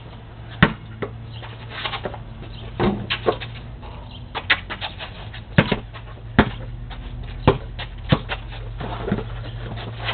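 Basketball bouncing on a concrete driveway: about nine sharp thuds at uneven intervals, over a steady low hum.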